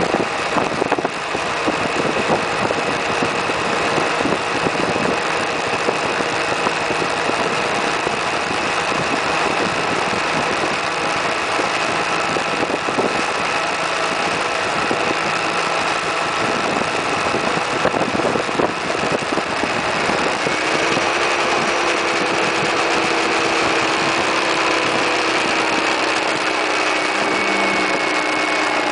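Suzuki Burgman 650 maxi-scooter's parallel-twin engine running at road speed under a steady rushing noise. About twenty seconds in, the engine note falls as engine speed drops.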